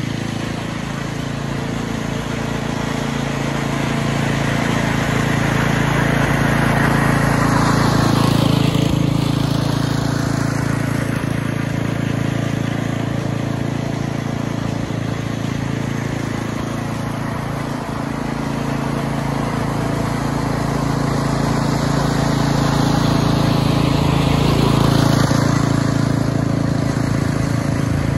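Jacobsen Greensmower 22 walk-behind reel mower running steadily while mowing grass. It grows louder and fades twice, about a third of the way in and again near the end, as it comes up and down the lawn.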